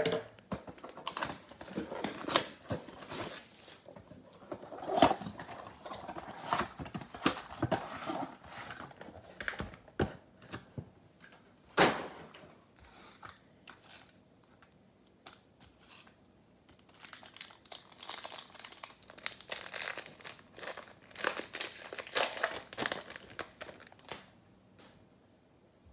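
Trading-card packs and their cardboard mega box being torn open by hand: irregular crinkling and tearing of wrappers and card stock, with a quieter lull a little past the middle and a second run of crinkling before it dies away near the end.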